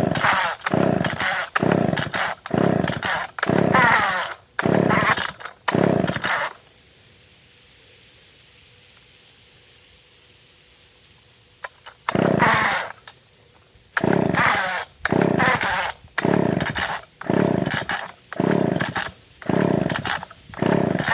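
McCulloch two-stroke chainsaw being pull-started over and over: its recoil starter is yanked in two runs of quick pulls, about one and a half a second, with a pause of several seconds between them. The engine turns over with each pull but never fires, a saw that won't start despite the choke being on and gas in the tank.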